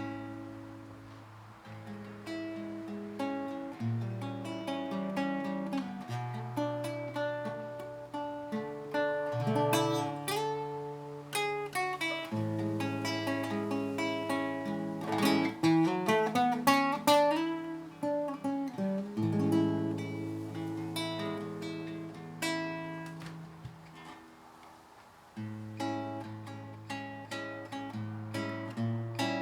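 Acoustic plucked-string instrumental music: a melody picked over low bass notes, with some strummed chords. It softens for a moment near the end, then comes back in.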